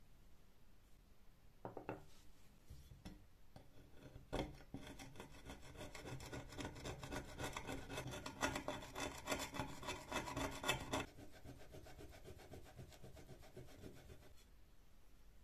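Flat metal tool scraping rust from inside the steel barrel of an old bike pump: a few knocks, then several seconds of rapid scraping strokes that stop about eleven seconds in, followed by softer rubbing.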